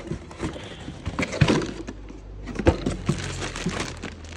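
Small plastic parts and packaging being handled: rustling with scattered clicks and knocks, the sharpest about a second and a half in and again near three seconds.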